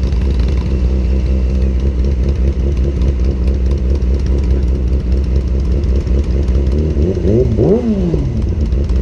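Motorcycle engines idling at a standstill, a steady low running sound. About seven seconds in, an engine is revved once, its pitch rising and falling back within about a second.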